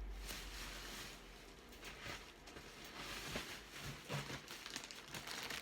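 Craft paper rustling and shuffling as scraps are handled, coming and going in short rustles.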